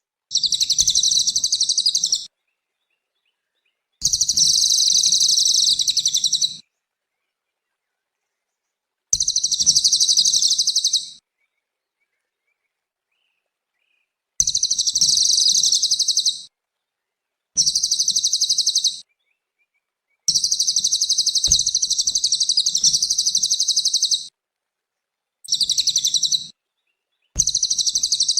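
Cililin bird in full song: repeated bursts of rapid, high-pitched twittering, each one to four seconds long, broken by short silences.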